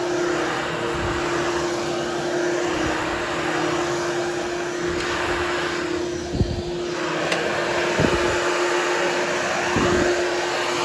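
Hoover Hushtone vacuum cleaner running steadily over a berber carpet to groom the pile, with a constant hum over a rushing airflow hiss. The hiss dips briefly a little past the middle.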